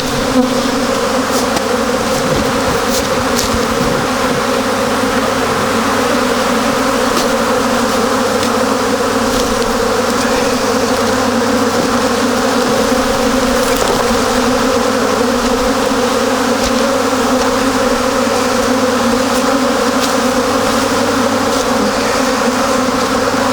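Honey bees in mass flight around the hives, a steady loud buzzing hum from thousands of wingbeats: the colonies' first cleansing flight after wintering.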